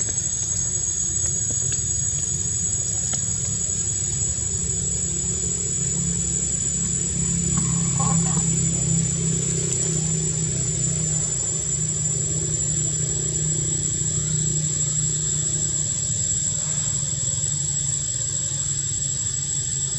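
A steady low engine-like hum, swelling for a few seconds around the middle, over a steady high-pitched whine.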